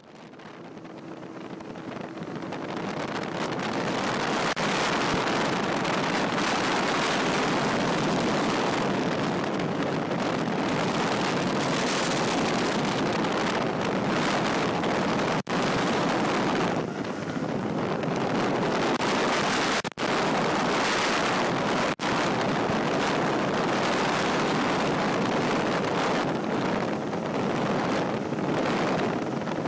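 Steady rush of wind buffeting the microphone, mixed with the drone of a light aircraft's engine in flight, recorded from an open microlight cockpit. The sound fades in over the first few seconds and cuts out very briefly three times in the second half.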